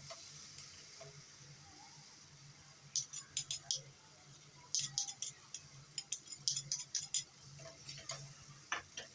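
Spoon stirring bell peppers in hot oil in a frying pan: clusters of quick clicks and scrapes against the pan starting about three seconds in, over a faint sizzle.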